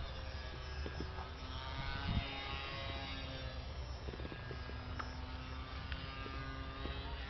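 Small brushless electric motor of a radio-controlled Cessna 182 trainer plane buzzing in flight, its pitch wavering, over a steady low rumble.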